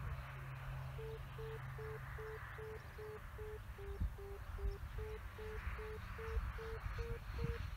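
Variometer on an RC glider's telemetry, beeping as short tones at about two and a half a second, their pitch stepping slightly up and down with the glider's climb rate. The beeps start about a second in, over a faint low rumble.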